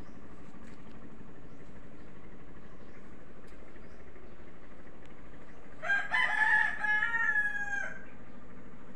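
A rooster crowing once, starting about six seconds in and lasting about two seconds, its call dropping in pitch at the end.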